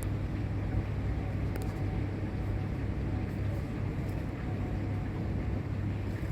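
Steady low mechanical hum, with a couple of faint clicks.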